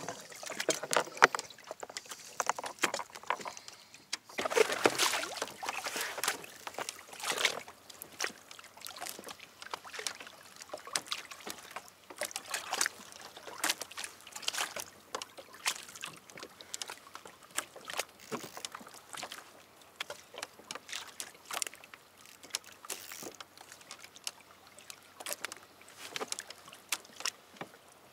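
Water lapping and sloshing against an anchored kayak's hull, with irregular small splashes and knocks; busier and louder for a few seconds about four seconds in.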